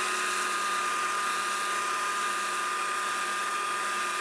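Upside-down-mounted belt sander running with a steady whine and hiss, with the corner of a maple leg rolled against the belt to round it over.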